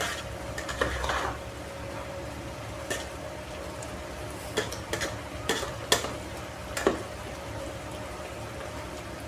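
Metal spoon stirring sautéing vegetables in an aluminium pot, clinking sharply against the pot several times over a steady low sizzle of the frying.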